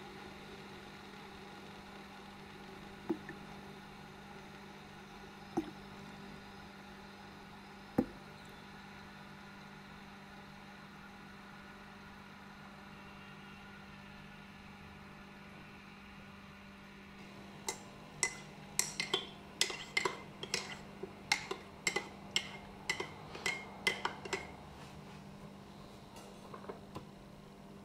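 A steady low hum with a few single soft knocks. Past halfway comes a quick run of about twenty ringing clinks, roughly three a second for some seven seconds: a metal spoon stirring in a ceramic mug.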